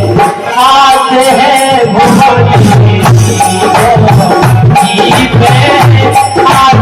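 Live Hindi devotional folk song (bhajan to Shiva): a singer's voice over steady hand-drum beats and a rattling, jingling percussion, with sustained accompanying tones.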